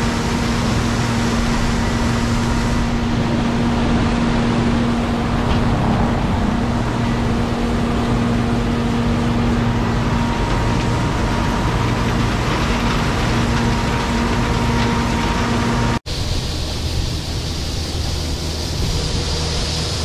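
John Deere combine running while harvesting corn: a steady machinery noise with a low engine hum. About four seconds from the end it cuts to a hissier steady noise as the combine's unloading auger pours shelled corn into a wagon.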